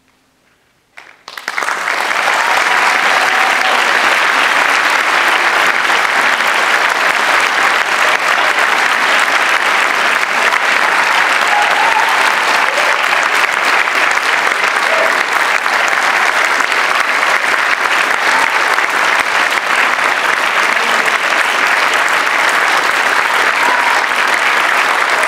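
A large audience applauding: after a moment of quiet, a few first claps come about a second in, and the whole hall joins within another second and keeps clapping steadily.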